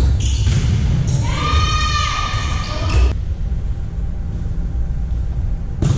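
Two sharp smacks of a volleyball, about three seconds in and again near the end, echoing in a large gym. A long high-pitched call from a player comes in the first half, over a steady low hall rumble.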